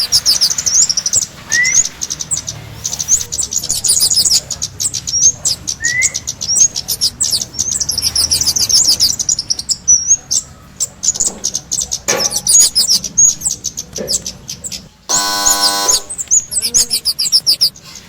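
Songbird lure call ('pikat' for the kemade jawa bird): rapid, high-pitched chirping trills that go on without a break. A few short rising whistles come in the first six seconds, and a harsh buzzing note lasting about a second comes around fifteen seconds in.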